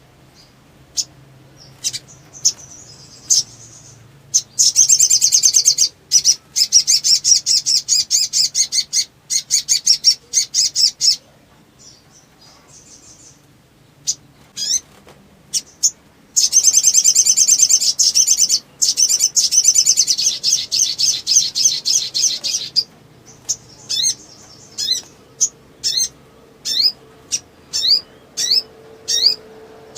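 A sogon (sogok ontong) sunbird singing in full song. Scattered sharp chirps lead into two long, very fast, high chattering song bursts of several seconds each. Near the end come short downward-sweeping chirps, about one a second.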